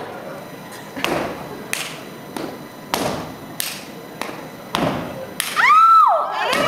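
Step team stomping and clapping in an even rhythm, about one sharp hit every two-thirds of a second. Near the end, shrill cheers and whoops break out.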